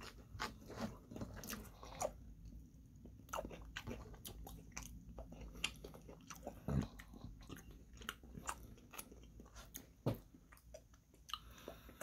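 Faint chewing and crunching of the last fried crumbs of chicken katsu, with a scatter of quick, irregular mouth clicks while fingers are licked.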